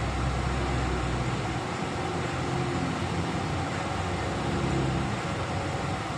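Car driving along a road, heard from inside the cabin: a steady mix of engine and road noise, with a heavier low rumble for about the first second.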